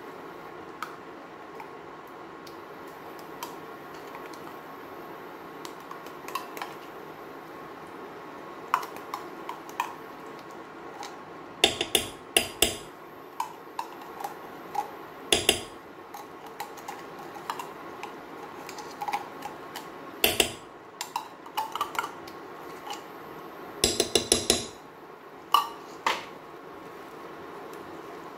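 Metal spoon clinking and knocking against a non-stick frying pan while tomato paste is scraped off it into the sauce. The sharp clinks come singly and in quick runs, the busiest near the middle and just before the end, over a steady low hiss.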